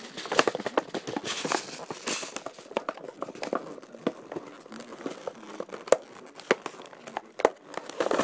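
Plastic wrapping crinkling and rustling as it is handled, with irregular sharp crackles throughout.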